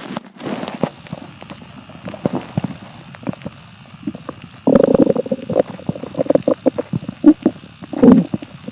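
Hungry, empty stomach rumbling: scattered crackly gurgles, then a louder, drawn-out pitched growl starting about halfway through, followed by more gurgles and a loud one near the end.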